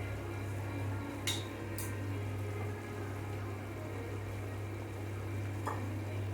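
Pieces of white salmon (vella kalan) being slipped into a pot of simmering curry, with a few sharp clinks of a utensil against the pot over a steady low hum.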